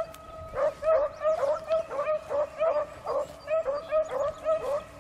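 Beagles baying on a rabbit's track. A quick run of short, pitched calls, about three a second, starts suddenly and keeps going.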